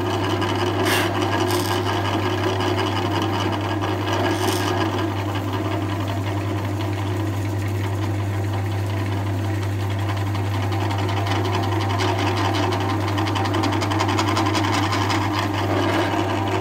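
Bench drill press running steadily, its bit boring a dowel alignment hole into a plywood frame, with a constant low motor hum under the cutting noise.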